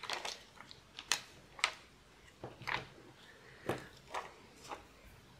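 Light, irregular clicks and ticks, about a dozen, from small craft sequins and pearl beads being picked out and set down by hand.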